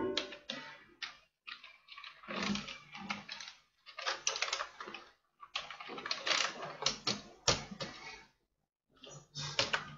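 Computer keyboard typing: irregular key clicks, some single and some in quick clusters.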